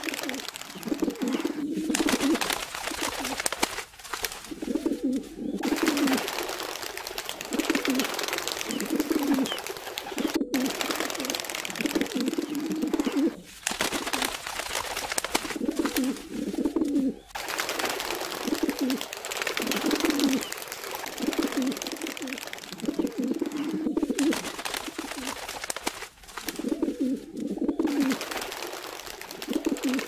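A flock of feral pigeons cooing, low rolling coos repeating about once a second over a steady background hiss. The sound breaks off abruptly a few times where the recording changes.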